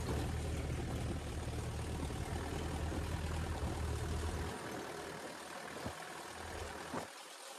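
Jeep driving along a wet, muddy dirt track: a steady low engine drone with tyre and rushing noise over it. The low engine drone drops away about halfway through, leaving mostly the tyre and rushing noise.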